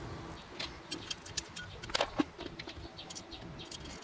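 Small metal fasteners clinking and ticking as washers and lock nuts are fitted by hand onto bolts on a metal mounting bracket. The clicks are light and irregular, with a louder pair about two seconds in.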